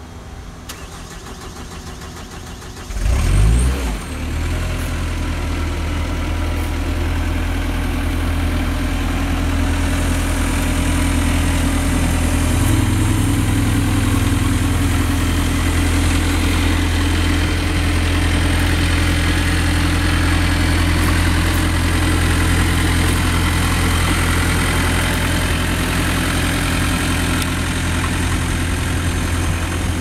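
Cat 257B2 skid steer's diesel engine cranking and catching about three seconds in, then idling steadily.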